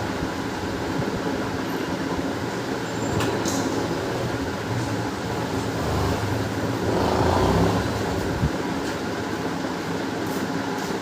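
Steady mechanical hum throughout, swelling briefly about two-thirds of the way through, with a few sharp clicks and taps as parts of a disassembled laser printer are fitted back into place.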